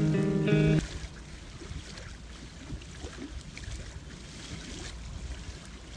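The song's final chord cuts off under a second in. After it comes a soft, steady water ambience with faint irregular crackles, a rain-like outro sound.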